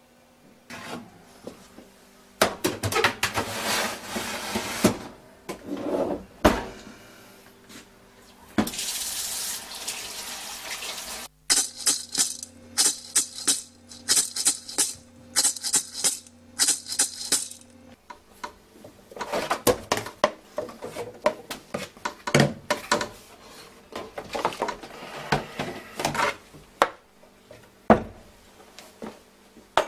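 Household clatter of dishes and objects clinking and knocking, with stretches of running water. A rhythmic passage with about two beats a second comes in the middle.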